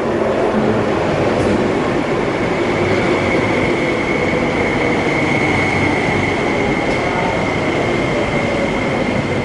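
MTR Ma On Shan Line electric metro train running into the platform, its running noise carrying a steady high whine and lower motor tones that slowly fall in pitch as it slows.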